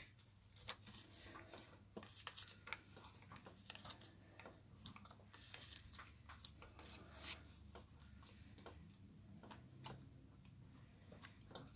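Faint small clicks and soft rustles of hands handling cardstock and sticking hexagonal foam adhesive pads onto a card panel, scattered irregularly against near silence.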